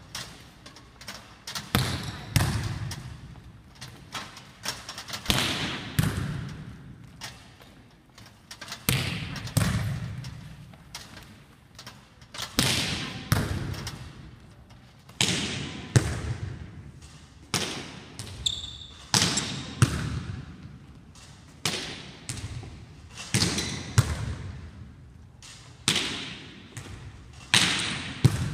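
Volleyballs being hit and passed in a gymnasium: a sharp smack of ball on hands or forearms every second or two, each dying away in the hall's echo.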